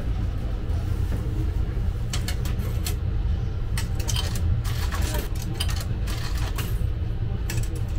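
Coins clinking as they are fed into the coin slot of a shower card vending machine: a run of short metallic clicks starting about two seconds in, over a steady low rumble.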